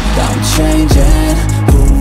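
Background hip-hop music with a steady beat and a heavy bass line, in a gap between the rapped lines.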